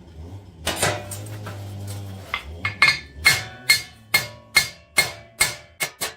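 Hand hammer blows on hot stainless steel over an anvil, each strike ringing. The strikes come in a steady rhythm of about two to three a second and quicken near the end. A low hum fades out about two seconds in.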